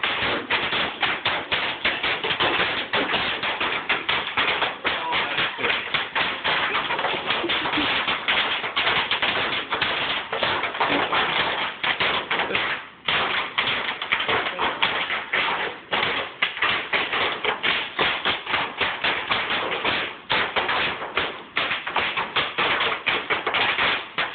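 Bubble wrap popping underfoot as several people run and stomp across a floor covered with it: a loud, dense, rapid crackle of pops, with a couple of brief lulls.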